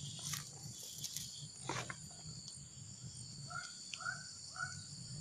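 Steady, high-pitched chorus of insects, with a few sharp clicks in the first two seconds and three short pitched calls about half a second apart near the end.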